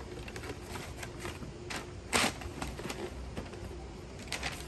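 Boot box being opened and handled: scattered rustling, scraping and light clicks, with a louder rustle about two seconds in and another near the end.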